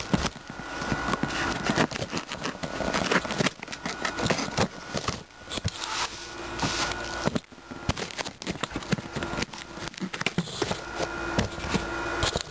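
Cardboard shipping box being handled and opened: irregular scraping, rustling and knocks close to the microphone.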